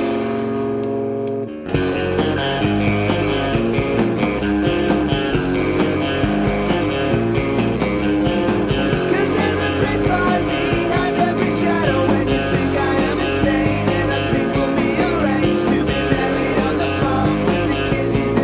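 Rock music: a held electric guitar sound, then, just under two seconds in, a full band with drums comes in at a steady beat.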